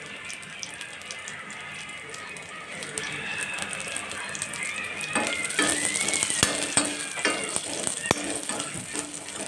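Grated coconut frying in a little oil in a pan, sizzling while it is stirred with a spatula. It gets louder about five seconds in.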